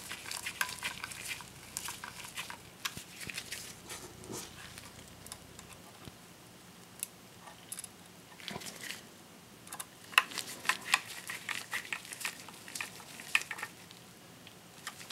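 Small metal clicks and scrapes of a mini Phillips screwdriver turning tiny screws into a metal 2.5-inch drive caddy, with the caddy clinking in the hands. The clicking comes in two busy spells with a quieter stretch in the middle.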